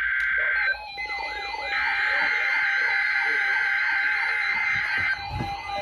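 NOAA Weather Radio receivers sounding their alarms for the weekly test of the warning alarm tone: a steady high electronic tone with a fast warbling, siren-like tone over it. The steady tone drops out for about a second near the start, then comes back.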